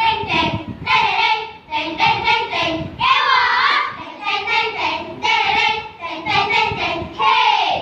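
A group of schoolchildren performing a Malay bicara berirama (rhythmic choral-speaking) piece, chanting and singing in unison in short rhythmic phrases. There is a longer held, wavering note about three seconds in, and a held note near the end that falls away.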